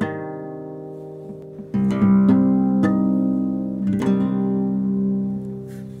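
Background music of an acoustic guitar strumming chords, with fresh strums about two, three and four seconds in and the chords ringing on between them.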